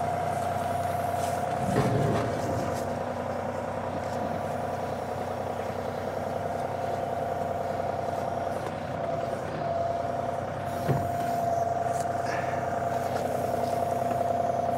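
John Deere 2038R compact tractor's three-cylinder diesel engine running steadily, with a constant whine, while its backhoe and loader handle a culvert pipe. A couple of brief knocks, about two seconds in and again near eleven seconds.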